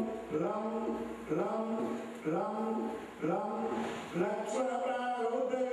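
Male voices of Hindu priests chanting a mantra on a steady pitch, in short phrases that start about once a second, then holding one long note near the end.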